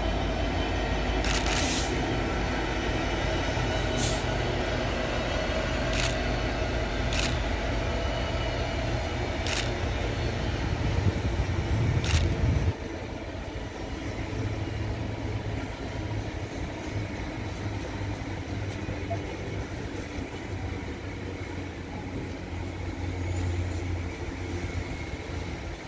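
Four Class 66 diesel-electric freight locomotives working in multiple, their diesel engines running as they pass, with sharp clicks every second or two. About halfway through, the engine sound drops off abruptly, leaving a quieter rumble of loaded rail wagons rolling by.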